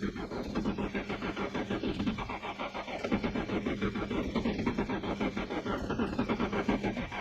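Nissan 240SX being cranked over on its starter motor in fast, even pulses, the engine not catching: a no-start.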